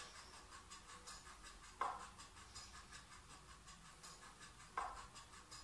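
Near silence: quiet room tone in a small room, broken by two soft, short sounds about three seconds apart.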